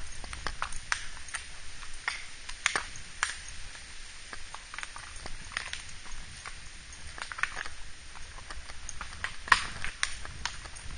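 Horses walking on a woodland dirt trail, their hoofbeats coming as irregular clicks and clip-clops, with one sharper click about nine and a half seconds in.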